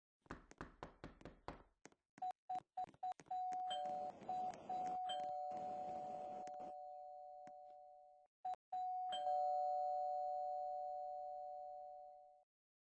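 A quick series of about eight knocks, then a two-tone ding-dong chime, high note then low, rung several times in quick succession and once more near the end, each ring fading out slowly.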